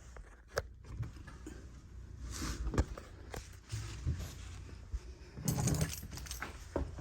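Footsteps and irregular knocks of someone climbing up and moving about in an attic, with light rattling in between; the heaviest knocks come about five and a half seconds in.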